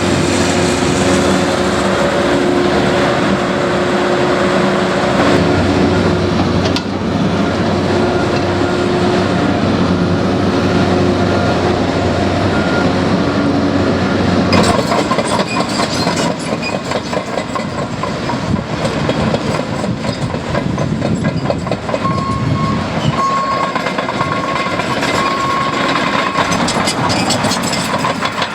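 Heavy diesel construction machinery running steadily, then from about halfway a fast, continuous rattling clatter takes over.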